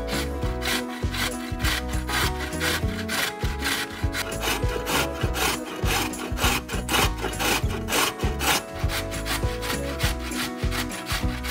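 Rhythmic rasping strokes of kitchen food preparation, about three a second, over background music.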